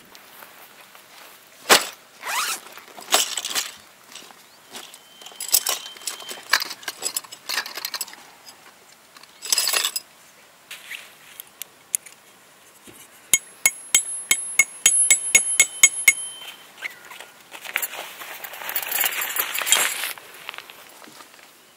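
Camping gear being handled: metal cot-frame and tent poles clicking and clinking as they are fitted and pulled out, and a nylon tarp and bag rustling. Partway through comes a quick run of sharp ticks, and near the end a longer stretch of rustling.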